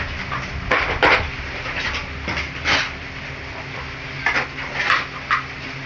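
Someone rummaging through belongings on a bed, a string of short rustles and clatters as things are moved and picked through, over a steady low hum.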